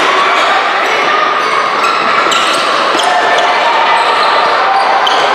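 Sounds of a basketball game in a gym: a ball bouncing on the court amid steady crowd chatter, with short high squeaks now and then.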